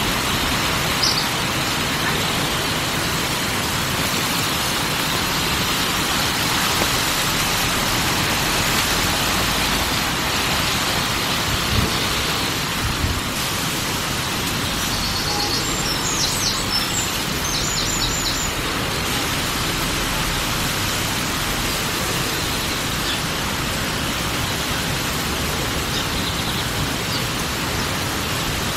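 Steady rushing outdoor background noise, even from low to high pitches, with a few faint high chirps about halfway through.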